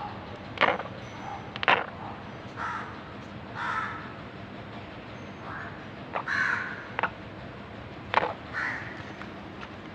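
An animal grinding its teeth (bruxism), a sign of abdominal pain: five short, sharp grating crunches, two in the first two seconds and three between about six and eight seconds in. Softer harsh bird calls sound in the gaps between them.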